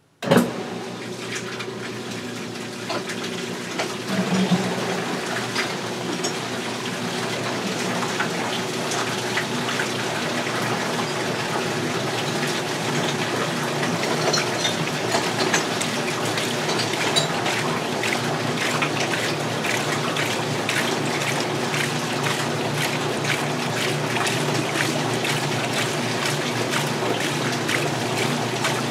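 Restored 1978 Maytag LA806 belt-drive washing machine switching on with a sudden clunk a moment in, then running steadily with water gushing and splashing over a low machine hum.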